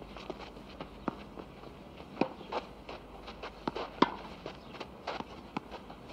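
Irregular light clicks and knocks, roughly one or two a second, over faint steady background noise.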